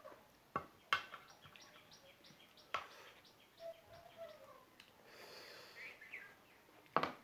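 Birds chirping, including a rapid run of short high ticking notes, with a few sharp clicks: one near the start, one in the middle and a loud one at the end.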